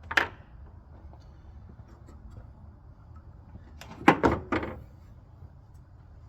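Hard knocks from work in the engine bay during an EGR valve swap: one knock right at the start, then three quick knocks about four seconds in.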